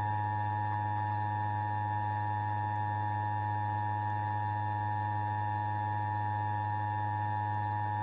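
Emergency Alert System attention signal: a steady two-tone electronic alarm that starts abruptly and cuts off suddenly after about eight seconds. It heralds a tornado emergency warning.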